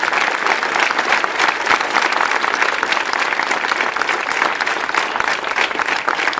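A crowd applauding, many hands clapping densely and steadily.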